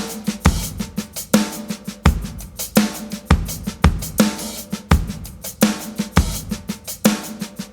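Background music with a drum kit playing a steady beat: kick drum, snare and cymbals.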